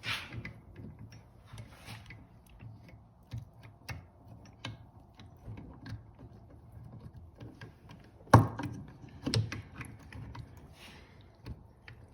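Metal engine parts of an LT500R bottom end clicking and clinking as they are handled and fitted, with a sharper knock about eight seconds in and another about a second later.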